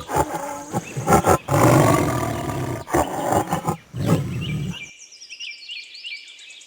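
Ibis calling: loud, harsh, raucous calls repeated for about five seconds, then a quieter run of short, high, falling chirps.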